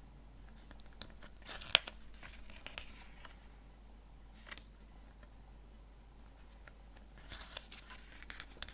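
Hands handling CD packaging: light rustling and crinkling with a few sharp plastic clicks. The loudest is a click about two seconds in, and a second stretch of rustling and clicks comes near the end.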